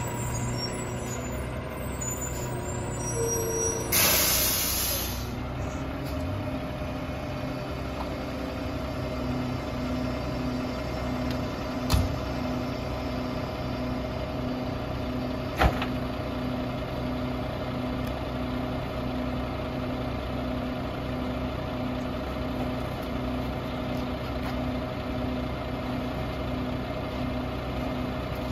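Rear-loader garbage truck idling at the curb, with a short air-brake hiss about four seconds in and a low pulsing hum after it. Two sharp bangs come near the middle.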